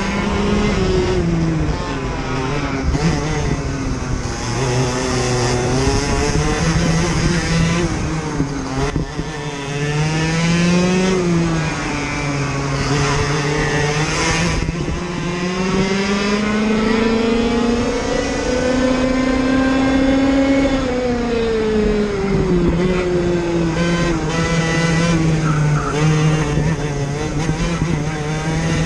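IAME KA100 100cc single-cylinder two-stroke kart engine at racing speed, heard onboard. Its pitch climbs along the straights and drops several times for the corners, with a long climb near the middle and a sharp drop just after.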